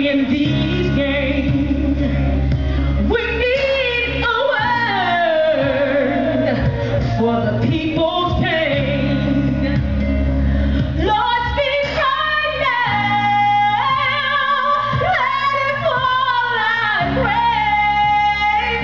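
A woman singing a song with long held notes that slide up and down in pitch, over instrumental accompaniment with a steady low bass.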